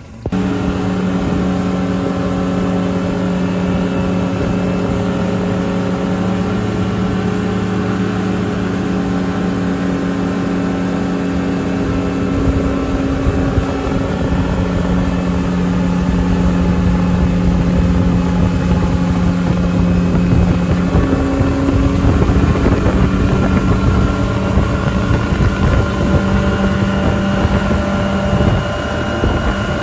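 A recently overhauled Suzuki 140 hp four-stroke outboard runs steadily at speed, pushing the boat along, with the rush of water and wake underneath. Its pitch shifts slightly a few times.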